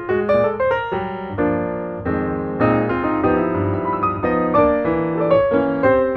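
Background piano music: quick runs of notes with held chords in the middle.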